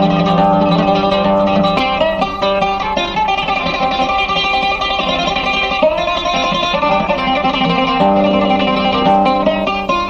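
Instrumental interlude on a plucked string instrument playing a busy melodic line, with no singing.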